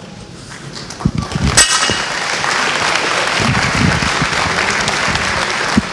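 Audience applauding, the clapping swelling about a second and a half in and then holding steady. A single sharp knock with a brief ring comes as the clapping starts.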